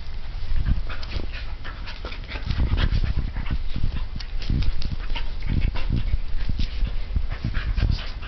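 Two dogs play-fighting: panting and scuffling, with many short clicks and knocks.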